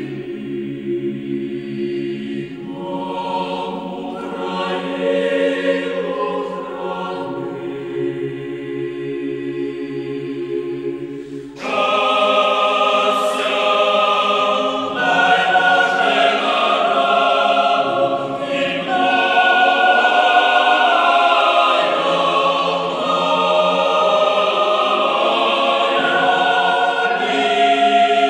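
A choir singing slowly in long held notes, with no instruments audible. About twelve seconds in it suddenly becomes louder and fuller, with higher voices joining.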